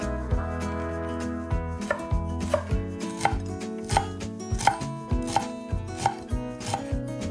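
Chef's knife chopping fresh dill on a wooden end-grain cutting board: sharp knocks of the blade hitting the board at a steady pace, about three every two seconds.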